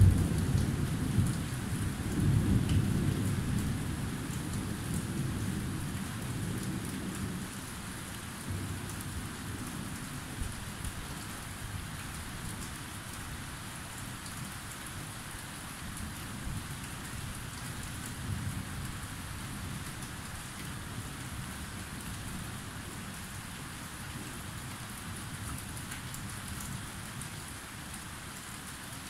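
Thunder rumbling, loudest at the very start and again about two seconds in, then dying away over several seconds, over steady rain falling throughout.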